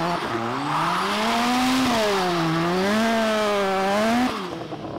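Mazda RX-7 FC's rotary engine held high in the revs through a drift, its pitch rising and falling as the throttle is worked, over the hiss of the spinning rear tyres. The sound cuts off suddenly a little after four seconds in.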